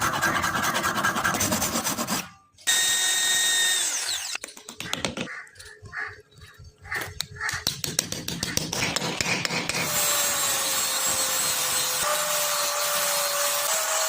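Workshop tool work in several short cuts: rubbing and rasping strokes, then a steady power-tool run with a faint whine over the last few seconds.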